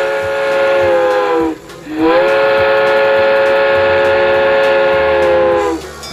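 Train whistle sounding in two long blasts, each a steady chord-like tone that sags in pitch as it cuts off; the second blast is the longer.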